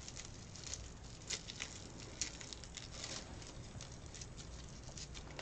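Faint rustling and light crackling of dry raffia strands being handled and tied into a small bow by hand, with a few sharper ticks.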